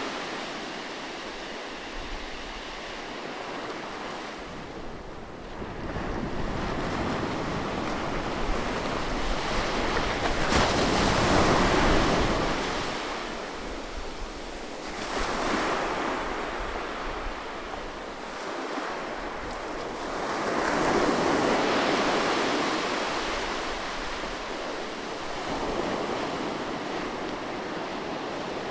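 Ocean surf: waves breaking and washing up the shore in a steady rush of water that swells and ebbs every few seconds, loudest about eleven seconds in.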